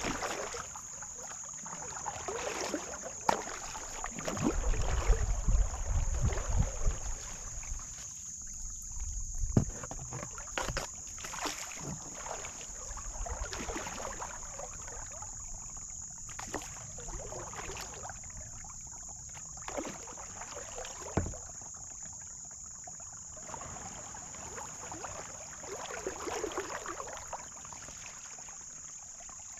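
Kayak paddle strokes in slow river water: a soft swish and splash every couple of seconds, with drips and the odd knock of the paddle. A low wind rumble on the microphone stands out for a few seconds, about four seconds in, and a steady high hiss runs behind it all.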